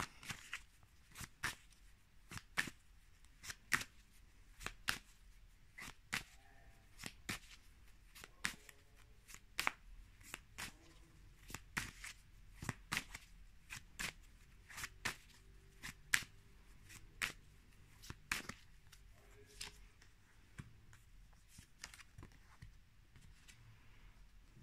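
Tarot deck being shuffled by hand: a run of sharp card snaps, about one a second, that stops about three-quarters of the way through.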